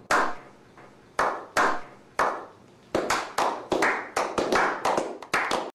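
Slow clap by a small group of men: single, widely spaced claps at first, then faster and overlapping from about three seconds in, before it cuts off suddenly.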